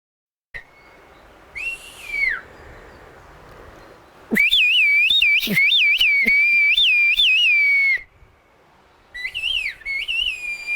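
Whistled Turkish (kuş dili, the 'bird language'): a person whistling in phrases whose pitch keeps rising and falling like the syllables of speech. A short falling whistle comes about two seconds in, a long loud phrase runs from about four to eight seconds, and another phrase starts near nine seconds.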